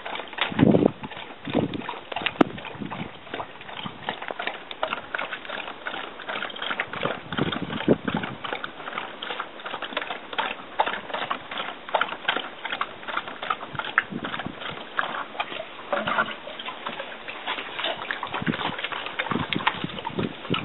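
A pony blowing close to the microphone, two loud low puffs near the start; then a large dog drinking from a plastic bucket, lapping and sloshing the water in short irregular splashes.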